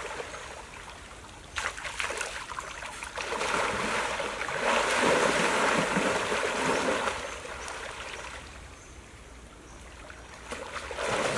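River water splashing and sloshing as people wade and lunge through it waist-deep, loudest in the first half and easing off for a few seconds near the end.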